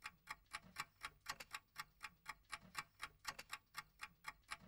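A clock ticking steadily, about four ticks a second.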